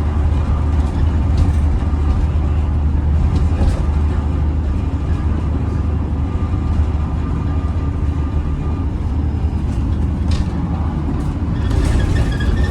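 Bus heard from inside while driving: a steady low engine rumble with road noise, a faint thin metallic tone over it through the middle, and a few short knocks. The uploader hears an awful metallic sound from this bus.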